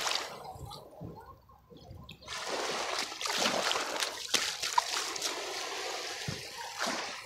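Small, gentle waves lapping at a sandy shoreline, water washing up onto the sand and running back. The sound is softer for about a second near the start, then fuller.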